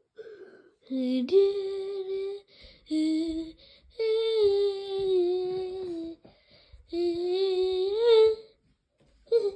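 A person singing wordlessly in four long held notes with short breaks between them, each lasting one to two seconds, and a short note near the end.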